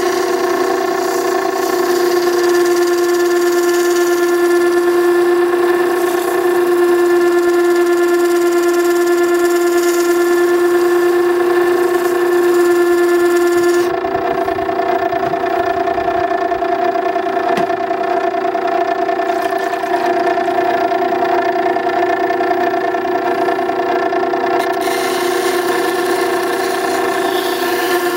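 Makita 9820 electric water stone running with a steady motor hum, while a chisel bevel is ground freehand on its turning wet stone, a hissing scrape of steel on stone over the hum. About halfway through the hum changes tone and the hiss fades, coming back near the end.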